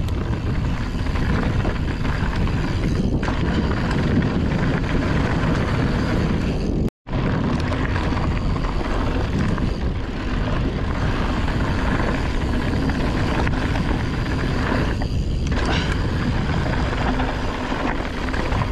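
Wind buffeting the bike-mounted camera's microphone, with the rumble of mountain-bike tyres rolling over a dirt trail, a steady low rush. The sound cuts out for a split second about seven seconds in.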